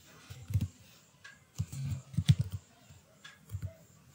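Computer keyboard being typed on: a run of irregular keystroke clicks with dull thuds as a command is entered.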